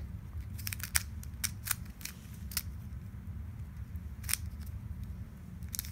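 Small 30 mm plastic 3x3x3 puzzle cube with a standard 3x3 mechanism clicking as its layers are turned by hand: a run of sharp, irregular clicks, clustered most thickly about a second in.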